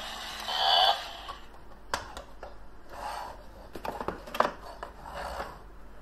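A short burst of a toy cow's recorded moo just under a second in, then handling noise as the hard plastic toy cow is turned over and stood in its cardboard box: rubbing and scraping with scattered clicks and knocks, the sharpest about four and a half seconds in.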